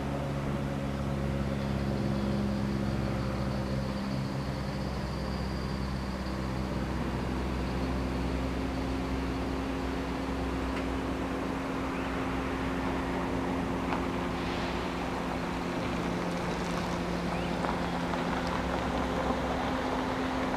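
Steady hum of an unseen train's motors or engine, several steady tones over a low rumble, stepping up in pitch about seven seconds in.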